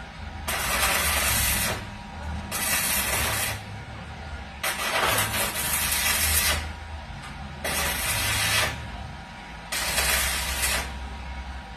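Electric arc welding in five short bursts of one to two seconds each, the arc hissing and crackling, starting and cutting off abruptly, with a low hum underneath.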